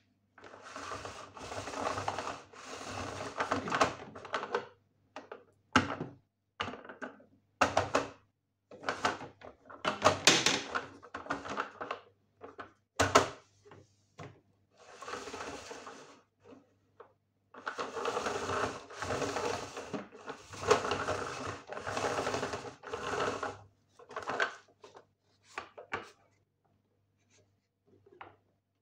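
Hard plastic toy wagon being handled: its lid and pull handle knocking, clicking and scraping, with stretches of rustling rubbing and many sharp clicks.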